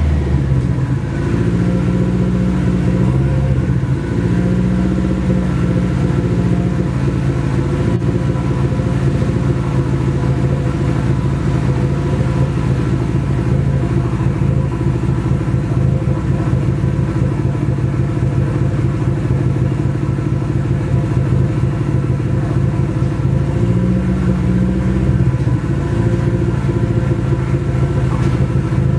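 Freshly installed Nissan SR20DET turbocharged four-cylinder engine running steadily, exhausting through an open downpipe with no exhaust system fitted.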